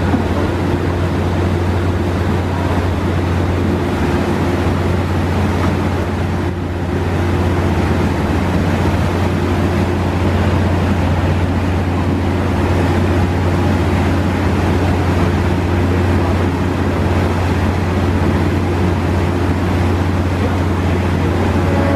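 The Lake Express high-speed catamaran ferry's diesel engines running with a steady low drone, mixed with the rush of water churned up at the stern as it prepares to pull away from the dock.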